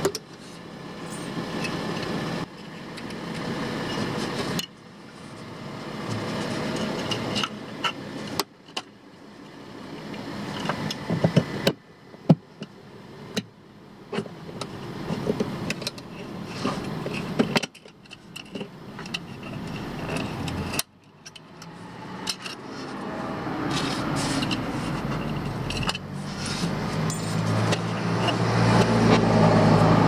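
Hands working on a car's front suspension by the subframe: scattered metallic clicks and light scrapes over steady background noise that drops away suddenly after some of the clicks and swells back. Near the end a low vehicle engine hum rises in.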